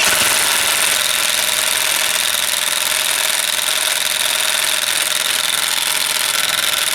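Ridgid cordless impact wrench in first gear hammering steadily on a lug nut torqued to about 170 ft-lb, with a constant whine over the rapid hammering. It runs for about seven seconds and cuts off suddenly. It is working to break the nut loose on its lowest power setting.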